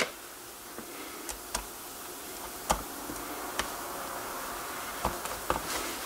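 A few scattered small clicks and taps as a slotted screwdriver and plastic parts are handled while a screw is driven through a rubber gasket into an intercom control's bezel, over a faint steady hum.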